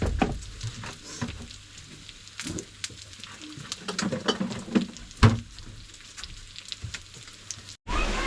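Scattered clicks and light clatter of utensils and plates at a barbecue, over faint sizzling from the grill. The sound drops out briefly near the end.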